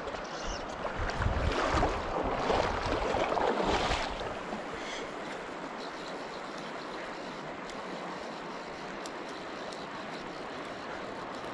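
Steady rush of a shallow, riffled river. During the first four seconds a louder stretch of rustling and low bumps close to the microphone sits over it, then the water noise runs on evenly.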